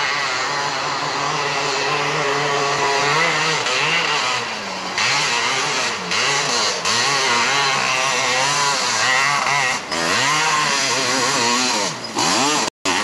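A 500cc ATV engine running hard on a hillclimb, its pitch rising and falling over and over as the throttle is worked. The sound cuts out for an instant near the end.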